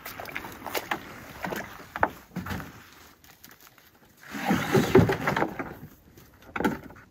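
A pack being loaded into a canoe: scattered knocks and rustling, then a louder thud and scraping against the hull about four and a half seconds in as the pack is set down in the boat, and another sharp knock near the end.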